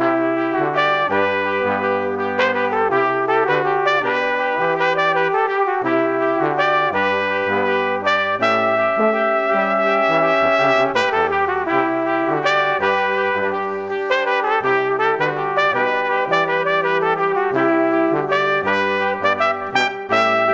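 Instrumental background music led by brass, with a melody over changing bass notes.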